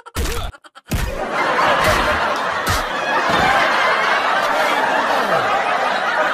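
Laughter, a dense, even stretch starting about a second in and cutting off abruptly at the end, like a comedy laugh-track sound effect.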